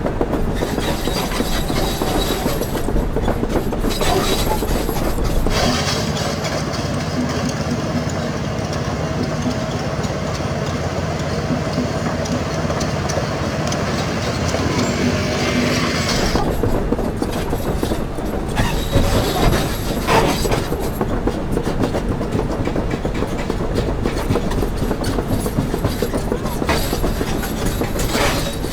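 Doosan 500LCV excavator working: its diesel engine running under load, with frequent clanks and rattles from the machine. The sound is steadier through the middle stretch.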